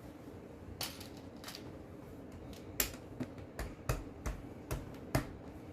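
Plastic Lego pieces clicking and tapping as they are handled and pressed together: a string of about eight to ten sharp, separate clicks at uneven intervals.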